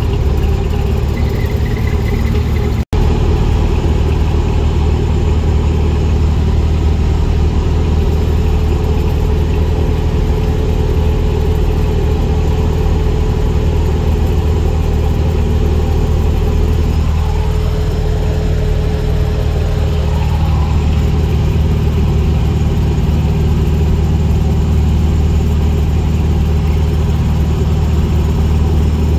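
Car engine droning steadily at cruising speed, with road noise; the sound cuts out for an instant about three seconds in.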